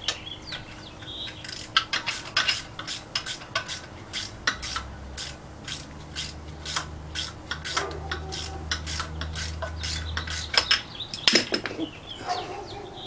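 Ratcheting wrench clicking in quick runs as it turns nuts on an engine block, with sharp metal clicks and clinks. A low steady hum sits underneath through the middle.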